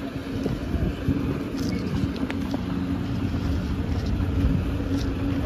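Low, steady drone of idling engines from a docked roll-on/roll-off ferry and the vehicles waiting on its car deck, holding one low hum throughout.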